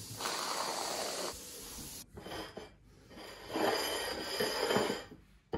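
A dog snuffling and breathing noisily in several rough bursts, the longest and loudest near the end.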